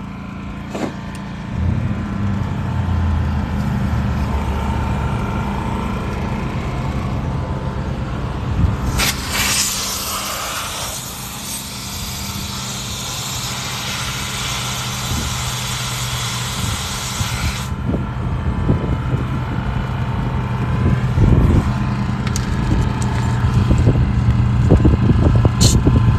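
Generator engine running steadily, with a long hiss of compressed air at the tire's valve stem for about nine seconds in the middle as the tire pressure is adjusted; the hiss starts sharply and cuts off suddenly.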